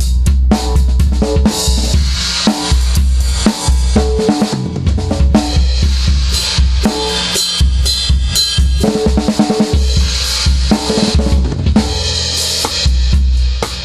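Drum kit playing a steady beat, with bass drum and snare strokes over a heavy, sustained bass.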